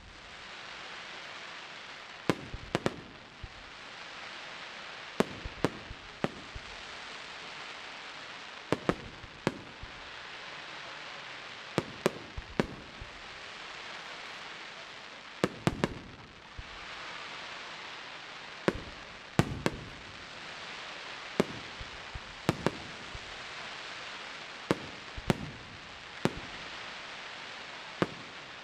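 Fireworks display: sharp bangs of shells bursting in clusters of two or three every few seconds, over a steady hiss.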